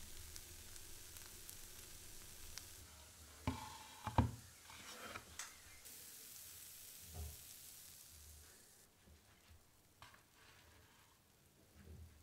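A slice of bread frying in olive oil in a non-stick pan, with a faint steady sizzle that dies away in the second half. A few sharp knocks and scrapes in the pan come about three and a half to four seconds in.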